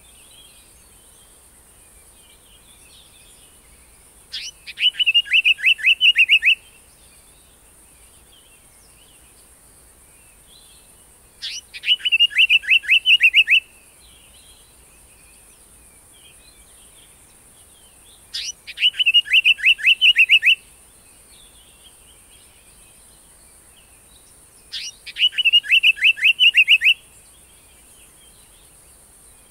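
Indian paradise flycatcher calling: four phrases about seven seconds apart, each a sharp high note followed by a quick run of about eight down-slurred notes. Faint chirps sound between the phrases.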